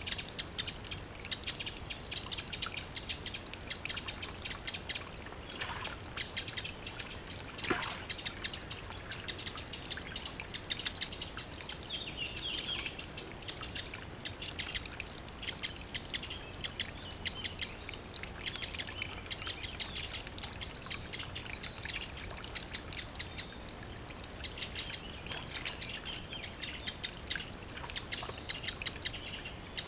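Woodland songbirds chirping and singing continuously, with occasional water splashing and trickling as a bird of prey bathes in a shallow stream pool.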